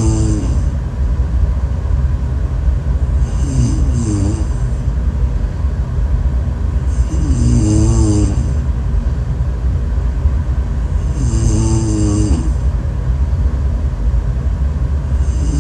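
Loud snoring, with a rattling, pitched snore about every four seconds over a steady low rumble.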